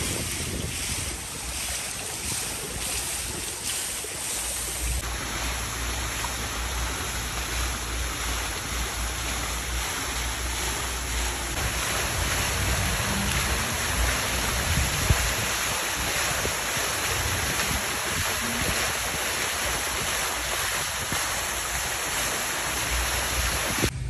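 Steady splashing of water from a tiered outdoor fountain, with wind rumbling on the microphone. The sound changes abruptly about five seconds in.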